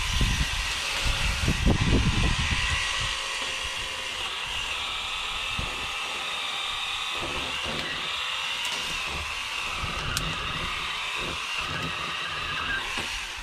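Small power saw running steadily as small trees are cut down, with a louder burst of low noise about two seconds in as a leafy tree comes down.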